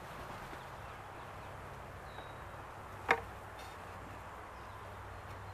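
A single sharp wooden knock about three seconds in as a wooden beehive box is handled, over the steady hum of honey bees around the open hive.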